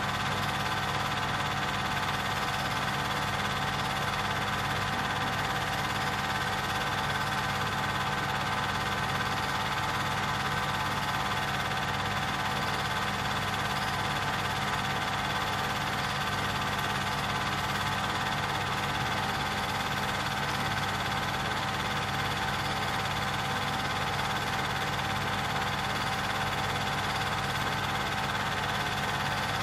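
Steady mechanical whir and hum that does not change with the picture cuts: a film projector running while the old footage plays.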